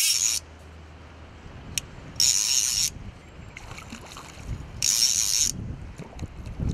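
Hooked common carp splashing and thrashing at the surface while being played on light float tackle: three short bursts of splashing, about two and a half seconds apart.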